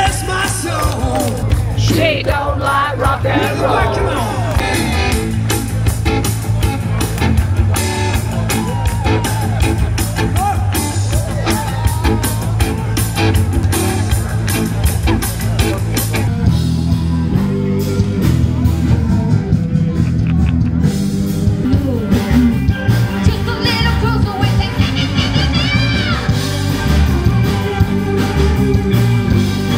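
A band playing blues-rock: a singer over electric guitar, bass and drums, with a heavier bass and drum groove from about halfway through.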